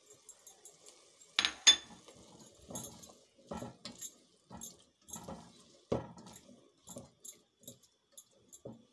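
Two sharp ringing clinks of a plate against a white enamel cooking pot as chopped vegetables are tipped in. After them, a silicone spatula stirs the chicken and vegetable filling, scraping and knocking against the pot about once or twice a second.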